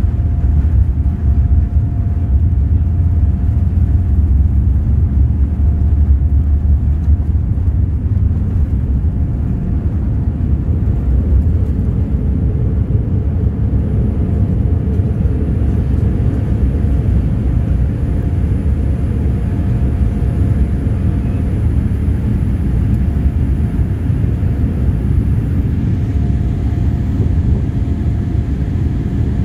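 Steady, loud low rumble of a Boeing 787-8's cabin with its engines running, heard from a window seat. A faint steady mid-pitched hum runs through it, and a faint high whine joins about twelve seconds in.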